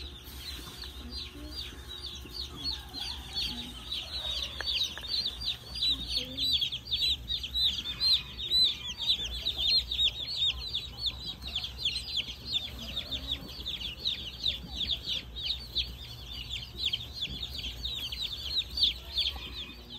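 A brood of baby chicks peeping continuously: many overlapping high, downward-sliding peeps, over a low steady hum.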